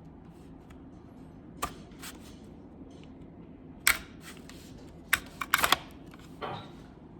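Sharp clicks and light clatter of small computer parts being handled while a hard drive is swapped out of an all-in-one PC. The clicks come singly at first, then in a quick cluster a little past halfway, which is the loudest part.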